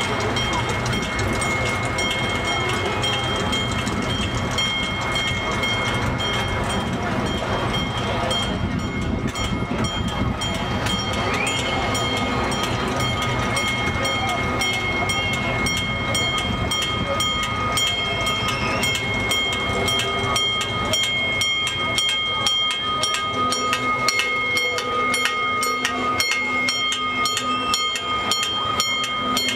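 Gasoline-powered miniature amusement-park ride train running steadily along its track: a constant engine and running-gear noise with a thin, steady high whine, and a regular light clicking of the wheels from about a third of the way in.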